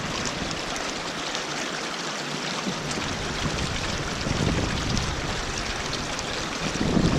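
Steady rush of a mountain stream. A low rumble on the microphone builds from about three seconds in and grows stronger near the end.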